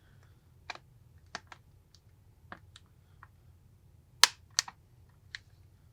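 Plastic back cover of a Samsung Galaxy Tab 4 snapping onto the tablet as its corners are pressed down: a scatter of small sharp clicks from the clips, the loudest about four seconds in.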